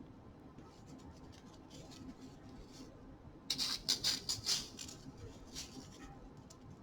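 Quiet lab room with a low steady hum; about three and a half seconds in, a second or so of rapid small clicks and rustles from handling a small bottle of glucose solution.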